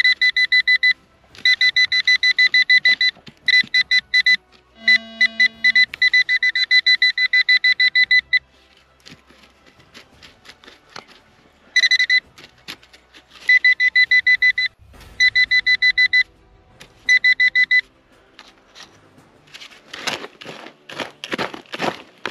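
Handheld metal-detector pinpointer beeping in fast pulses at a steady high pitch, in bursts of one to three seconds with short gaps, as it is pressed to the soil over a metal target. Near the end a hand trowel scrapes and digs into dry, stony soil.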